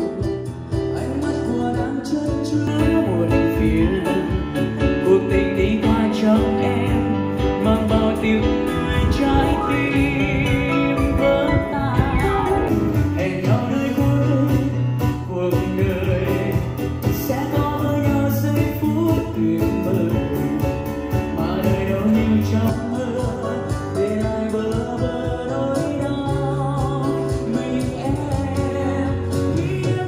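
A song with singing and guitar played through portable Bluetooth speakers at half volume, recorded from about 1.5 m: first the Marshall Stockwell 2, then the Bose Revolve Plus.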